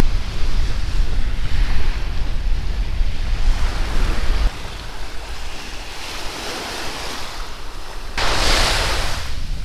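Waves breaking and washing up on a beach, with wind buffeting the microphone as a low rumble for the first half. A louder hissing wash of surf comes near the end.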